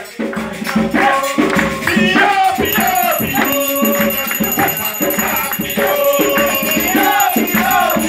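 Group singing of an Umbanda ritual song for the orixá Xangô, with shaken rattles keeping the beat.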